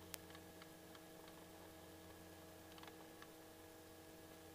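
Near silence on the helicopter's intercom audio line: a faint steady electrical hum with a few faint ticks scattered through.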